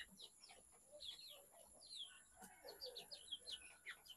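Young chickens, about two months old, peeping faintly: many short, high chirps that fall in pitch, in a steady scatter.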